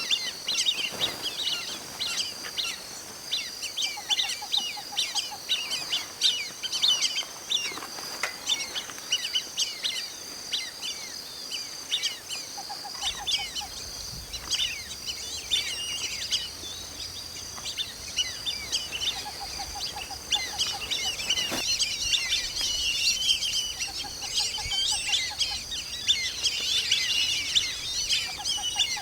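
A flock of white-faced whistling ducks calling: many short, high whistles overlapping continuously. Under them runs a steady high-pitched hum, and a brief low rattling trill comes every few seconds.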